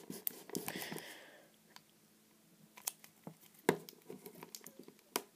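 Fingers pressing and rubbing a sticker transfer sheet down onto a pillowed plastic V-Cube. There is a rustling scrape for the first second or so, then a few scattered light clicks of fingertips on the plastic.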